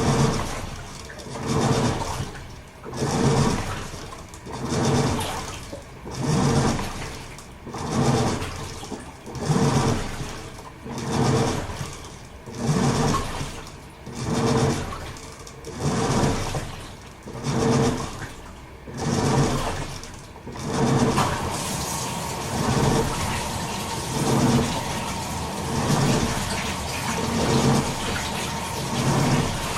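Toshiba AW-42SEE4 top-loading washing machine agitating: its pulsator sloshes the water back and forth in regular surges about every second and a half. About two-thirds of the way through, a steady hiss with a faint tone comes in under the surges, typical of water running into the tub.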